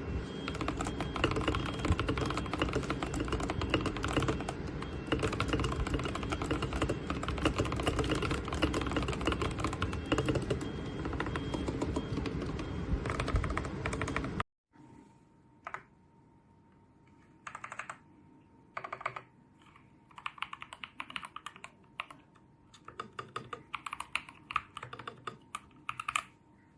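Typing on a Tecware mechanical keyboard: fast, continuous key clicks, then after a sudden cut about halfway through, quieter separate bursts of keystrokes.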